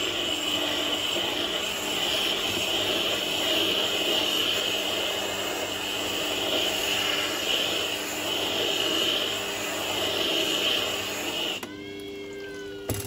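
Stone grader pressed against the turning wet grindstone of a Scheppach Tiger 3000VS sharpener, a steady gritty scraping over the machine's motor hum, roughening the stone to a coarse 220 grit. The scraping stops near the end as the grader is lifted off, leaving the motor humming.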